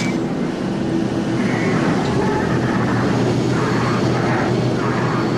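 Sound effect of a fictional winged flying craft passing overhead: a steady low drone with a rushing sound that swells about once a second.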